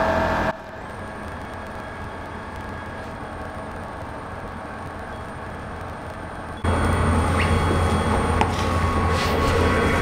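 A desktop laser cutter's fans run with a steady low hum and several steady tones. About half a second in, the sound cuts abruptly to a much quieter steady hiss with a faint high tone. Past the middle, the loud hum returns just as suddenly.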